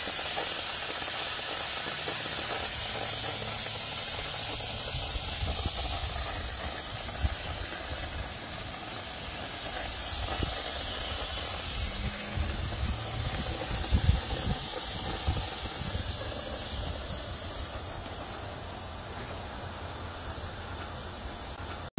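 Steady gas hiss at the refrigerant hose and service port of an air-conditioning condensing unit, with a few low knocks around the middle.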